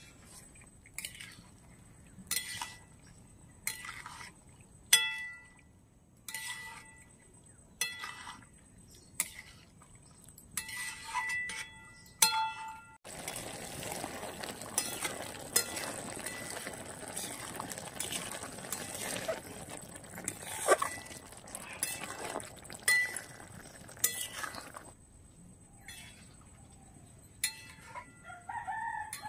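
Steel bowl and ladle clinking against a steel wok, sharp ringing clinks a second or so apart, as chopped ridge gourd and potato are tipped in and stirred. About halfway through the sound changes suddenly to a steady hiss of the curry frying, and then the clinks come back. A rooster starts to crow near the end.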